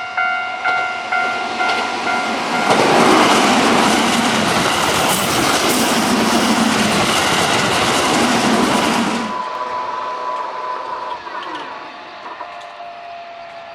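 Level-crossing alarm bell clanging about twice a second, then a Keihan Series 9000 electric train passes for about six seconds, its wheels clacking over the rail joints, and fades away, leaving a faint whine.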